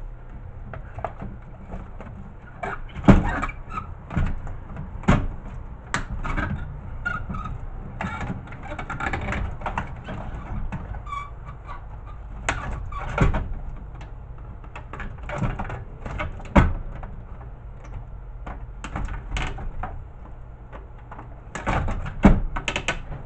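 Irregular clicks, snaps and knocks of plastic and metal parts as a VHS player's innards are pulled apart by hand and its wires snipped with side cutters.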